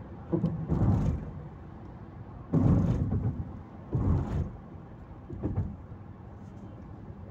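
Road noise inside a moving car, broken by four loud, low rumbling bumps over about five seconds, coming with the picture jolting.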